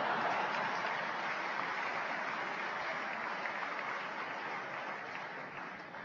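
Audience applauding in a lecture hall, a steady wash of clapping that dies away near the end.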